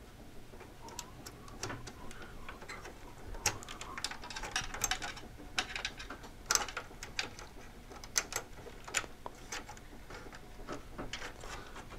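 Small plastic-and-metal clicks and ticks as wire connectors are worked off the circuit-board pins of a Tektronix 468 oscilloscope. They come irregularly, some singly and some in short clusters.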